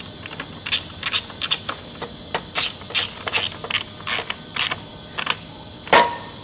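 Sharp metallic clicks, a few a second and unevenly spaced, from hand tools at work on a truck's A/C condenser fan assembly, over a steady thin high tone. One louder knock comes near the end.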